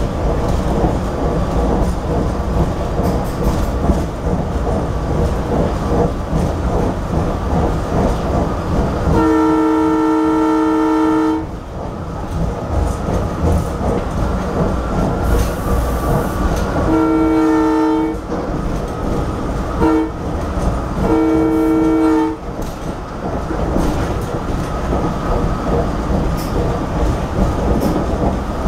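Leslie RS2M horn on a GE Silverliner IV electric railcar sounding the grade-crossing signal, long, long, short, long. Under it, the steady rumble and clatter of the car running on the rails.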